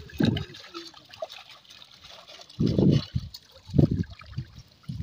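Water trickling and sloshing as a collapsible ring-net fish trap is hauled and shaken in shallow river water, with a few heavier sloshes as the net is lifted.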